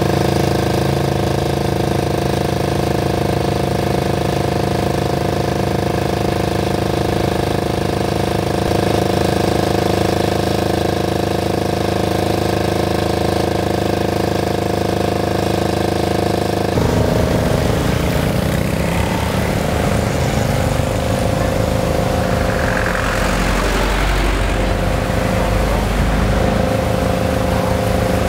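Air-cooled diesel generator running at a steady speed with an even hum. About two-thirds of the way through it changes abruptly to a rougher, deeper engine throb with a different pitch.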